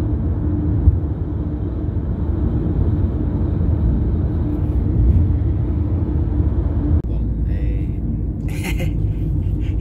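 Steady road and engine noise heard inside a moving car's cabin, a low rumble that breaks off for an instant about seven seconds in, with a few short higher-pitched sounds near the end.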